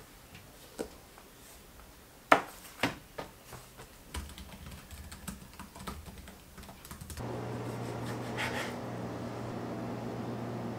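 Typing on an HP laptop's keyboard: irregular key clicks with a few louder knocks in the first few seconds. About seven seconds in, the clicks give way to a steady low hum.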